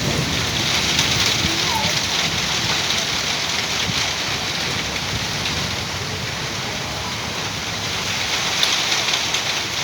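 Heavy rain falling steadily in a storm, an even dense hiss with scattered drop ticks.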